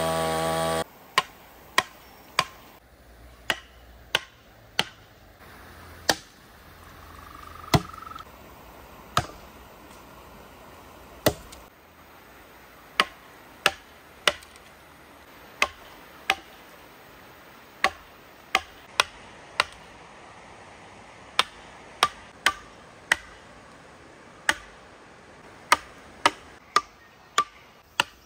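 Wooden mallet striking a chisel into a teak stump, sharp separate blows every half second to two seconds as the wood is roughed out. The blows come faster near the end.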